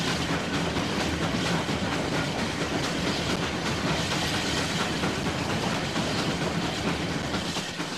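Oil-fired steam locomotive running under way, heard in its cab: a steady, loud noise of machinery with a rapid clatter of wheels on rail.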